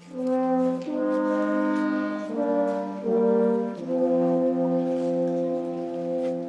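A small group of brass instruments playing a slow, sustained chorale in harmony. The chord changes several times in the first four seconds, then one long chord is held.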